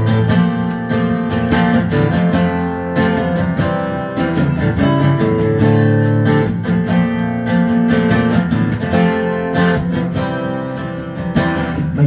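Acoustic guitar strumming chords in a steady rhythm, playing the opening of a song.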